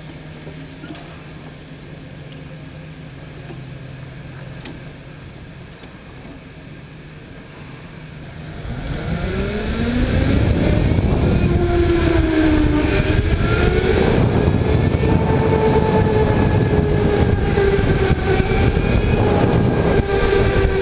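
Electric go-kart motor heard from on board: a faint low hum at first, then about nine seconds in a whine that rises in pitch as the kart accelerates. It settles into a loud, steady whine whose pitch dips and climbs through the corners, over a low rumble.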